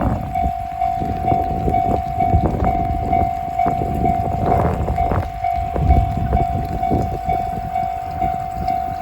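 Japanese railway level-crossing warning bell ringing a steady, evenly repeated ding, about two strokes a second. Wind buffets the microphone underneath it.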